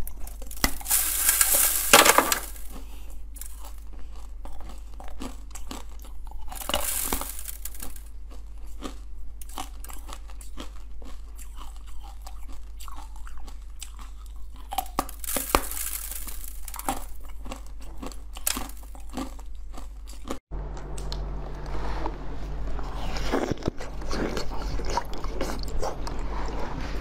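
Close-miked biting and chewing of frozen basil-seed ice: dense crackling crunches, loudest in bursts about a second in, around seven seconds and around fifteen seconds. About twenty seconds in it switches to a duller crunching of a block of ice.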